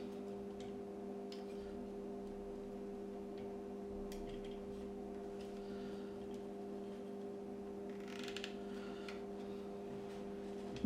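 Faint scattered clicks and a short rustle of small parts and wires being handled, about eight seconds in, over a steady electrical hum.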